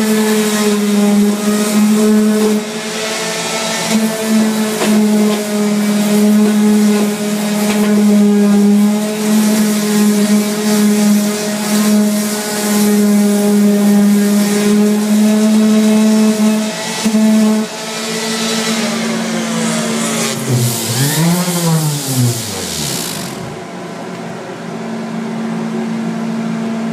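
Electric sander running on a countertop: a steady motor hum with the gritty hiss of abrasive on the surface. Near the end the motor's pitch sags and swings up and down, then the sanding hiss stops while a lower steady hum carries on.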